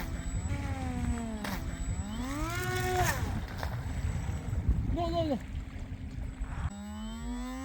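Small electric motor and propeller whining, its pitch swelling and falling as the throttle is worked up and down, then climbing smoothly near the end. A low rumble of wind or water noise sits underneath until near the end.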